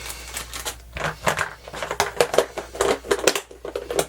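Irregular clicks, taps and light rattles of small plastic parts being handled on a workbench.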